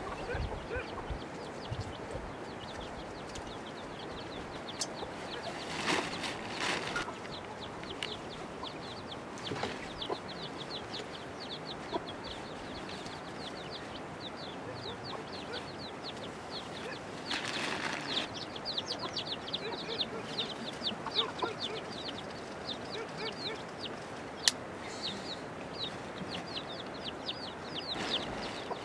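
Chickens chirping: a near-continuous run of short, high chirps, with bursts of rustling about six seconds in and again around eighteen seconds, and one sharp click near the end.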